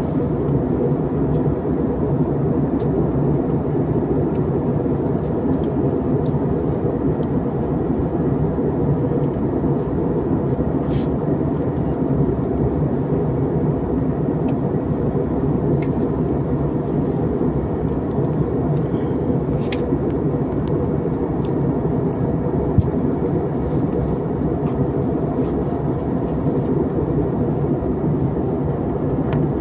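Steady cabin noise of an airliner in flight: a low, even rush of engines and airflow heard from inside the cabin.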